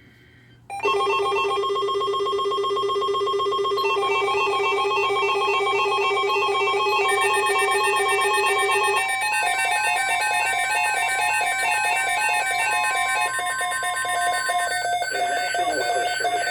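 Electronic alert tones of a NOAA Weather Radio severe-weather alert: several steady tones layered with rapidly stepping, warbling tones, starting abruptly about a second in. The mix changes about 9 seconds in and again near the end.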